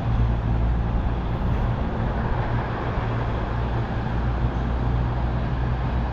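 Steady low rumble of city traffic, with a constant low hum underneath.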